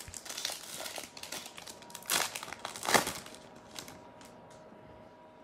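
Foil wrapper of a trading card pack crinkling as it is torn open, with louder crackles about two and three seconds in.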